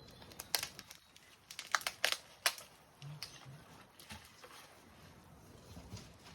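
A run of sharp crackles and rustles, densest in the first two and a half seconds, then a few scattered ticks, from hands working with seedlings and soil during planting.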